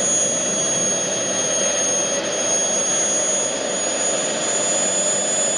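Miniature gas turbine in a scale model GT3 locomotive running steadily: a high turbine whine that holds nearly level in pitch over a constant rush of jet exhaust noise.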